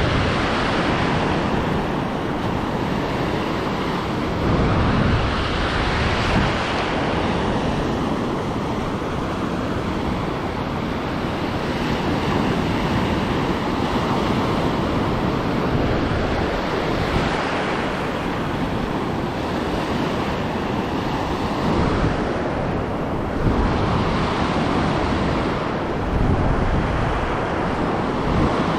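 Ocean surf washing onto the beach, swelling and easing every few seconds, with wind rumbling on the microphone.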